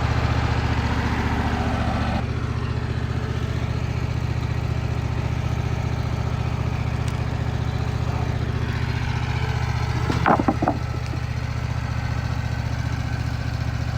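Wood-Mizer LT15WIDE portable band sawmill's engine running steadily; the sound thins a little about two seconds in. A short, higher-pitched sound rises above it around ten seconds in.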